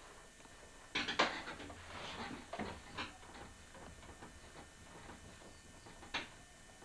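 Potter's wheel being turned by foot, with irregular knocks, clicks and scrapes, a busy cluster about a second in and one more sharp knock near the end.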